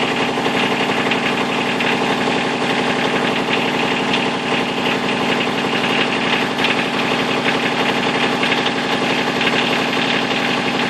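Engine of a Woods backhoe running steadily at idle, even and unchanging.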